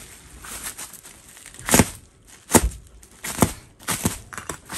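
Bubble-wrapped parcel being cut open with a piece of glass: a handful of sharp strokes, roughly one a second, starting about two seconds in.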